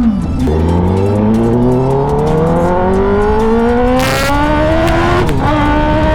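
Kawasaki ZX10R inline-four running through an SC Project CRT full-system titanium exhaust, revs climbing steadily under acceleration. About four seconds in it shifts gear, then holds steady revs with another shift near the end.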